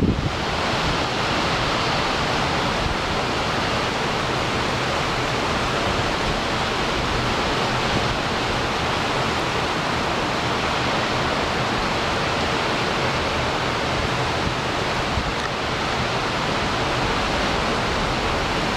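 Torrential typhoon rain, driven by the wind and pelting down hard, making a loud, dense, steady hiss.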